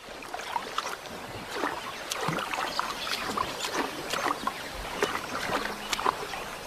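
Shallow muddy water splashing and sloshing in irregular strokes as a lion's legs wade around a hippo carcass.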